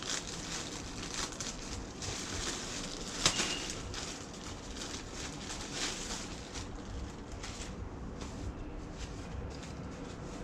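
Irregular rustling and handling noises with a sharp click about three seconds in.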